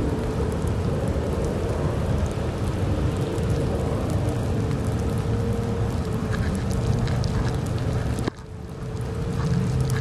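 Steady rain noise with raindrops ticking on the camera over a low rumble. The last tones of the Thunderbolt siren's wind-down fade out within the first second. The noise drops suddenly about eight seconds in, then builds again.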